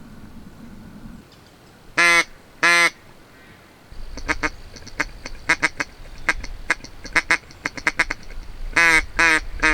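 Duck quacking: two loud quacks about two seconds in, a run of short, quick clipped notes, then three quacks in a row near the end.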